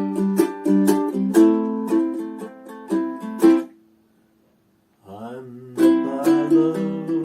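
Ukulele strumming chords in a steady rhythm. The strumming stops about three and a half seconds in, the last chord dies away into a second of silence, and the strumming starts again about six seconds in.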